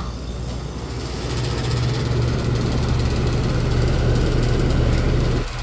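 A mid-1990s Ruud packaged heat pump starting up: its compressor and condenser fan run with a steady low hum that grows stronger about a second in.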